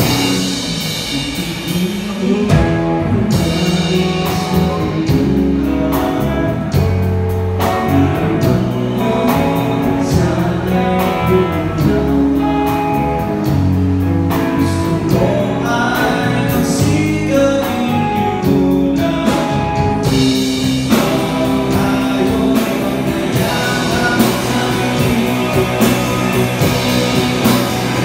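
Live three-piece rock band playing: electric guitar, bass guitar and drum kit, with a male lead vocal sung by the bassist.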